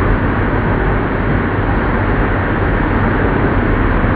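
Dense, steady machine noise with a low hum underneath, unchanging throughout.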